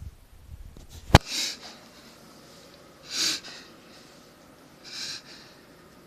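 German Shepherd dog making harsh, noisy breaths through the nose, three of them about two seconds apart, which the owner takes for reverse sneezing. A sharp knock a little after a second in is the loudest sound.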